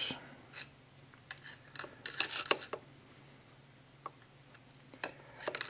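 Screwdriver tip levering the gears on the mainshaft of a 1979 Triumph Spitfire 1500 single-rail gearbox, giving scattered light metallic clicks and clinks as 2nd and 3rd gear are shifted back and forth through their end float of .002 to .003 in.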